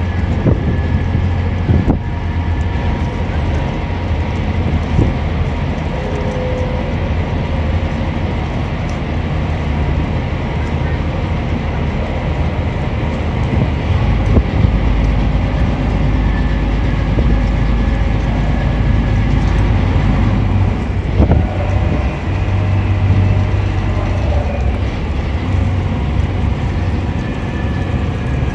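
Strong wind buffeting a phone's microphone aboard a small navy support boat under way. A loud, steady low rumble dominates.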